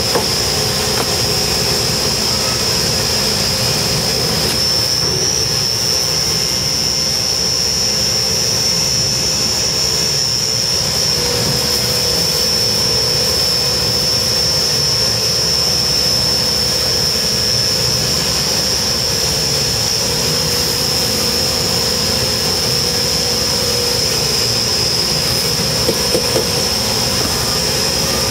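Concrete mixer truck running steadily while fibres are dosed in: a constant machine drone with a continuous high-pitched whine over it. There are a few light ticks near the end.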